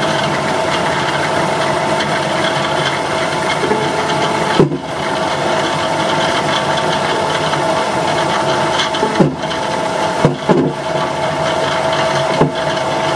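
Hollander beater running steadily, its electric motor and beater roll churning water and flax into paper pulp as torn flax sheet is fed in. A steady mechanical hum with a few short knocks.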